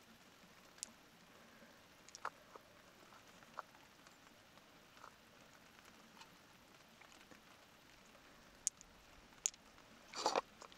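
Faint, scattered small clicks and taps, a few seconds apart, with a short burst of louder ones near the end.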